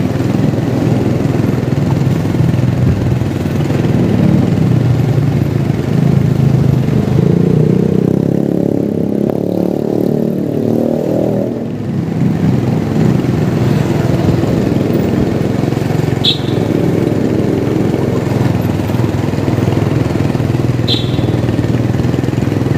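Motorcycle engine running at low road speed, with its pitch rising and falling between about 7 and 12 seconds in. Two short, high chirps come near the end.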